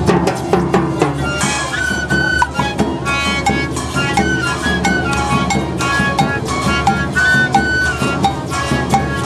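Two pipe-and-drum players, each playing a long one-handed flute while beating a bass drum, play a melody over a steady drumbeat. The flutes' high, piping tones move in a tune above the regular thuds of the bass drums.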